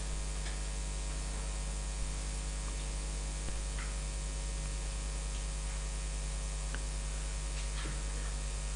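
Steady electrical mains hum and hiss from the sound system, with a few faint, scattered clicks.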